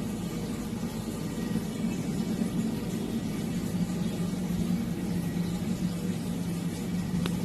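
A small motor humming steadily, with one brief click about seven seconds in.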